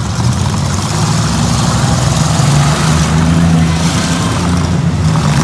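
Engines of demolition-derby minivans and small pickup trucks running and revving steadily, with a hazy rush of noise over the top.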